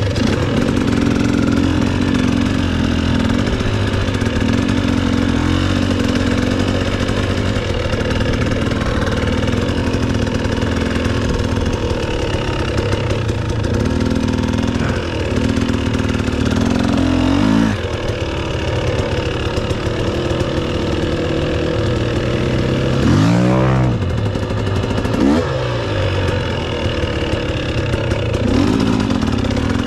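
Dirt bike engine running close up while riding, its revs rising and falling with the throttle. There are a few quick rev swings past the middle.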